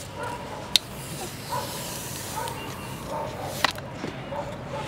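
Handling of a tempered-glass screen protector over a phone, with two sharp clicks, about a second in and near the end, the second as the glass is laid onto the phone's screen, over a steady hiss.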